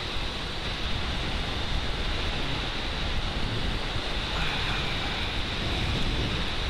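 Steady rush of wind buffeting the camera microphone on a motorcycle riding at motorway speed, mixed with road and engine noise from a Honda CBR 600 F.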